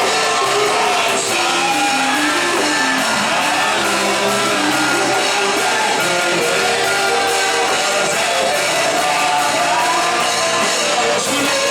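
Gospel worship song: voices singing over band accompaniment with a steady beat.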